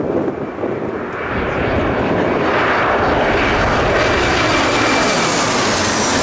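Airliner passing low overhead on its landing approach: the engine noise builds over about two seconds into a loud, steady rush with a high whine on top. Gusty wind rumbles on the microphone underneath.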